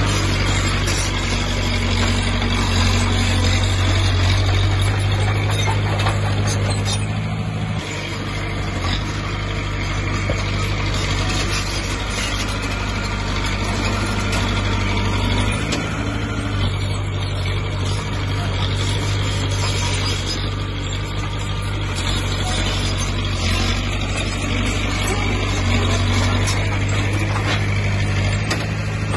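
Diesel engine of heavy earthmoving machinery running steadily, dipping briefly in level about 8 and 16 seconds in.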